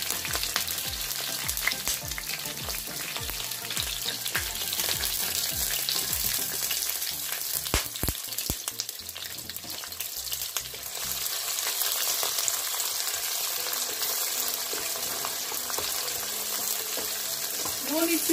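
Chopped onion, curry leaves and green chillies sizzling in hot oil in a nonstick wok, with frequent sharp crackles and pops, most of them in the first half. A wooden spatula stirs them near the end.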